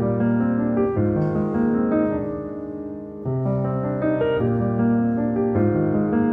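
Background music: slow piano chords, each held and then replaced by the next, with a fresh chord struck about three seconds in.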